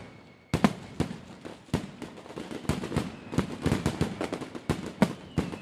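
Consumer firework barrage firing: a quick irregular run of bangs, several a second, with crackling between them and a faint falling whistle near the end.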